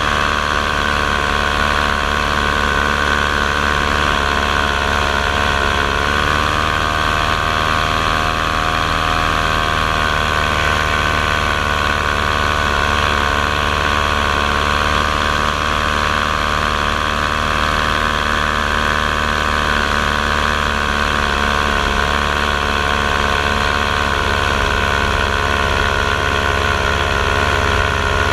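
Electric motors and propellers of a camera drone in flight, a steady whine of several close tones that wavers slightly in pitch about six to nine seconds in.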